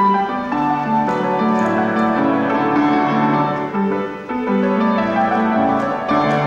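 Instrumental Scottish country dance music: a tune on keyboard-type instruments, melody over steady bass notes, playing without a break.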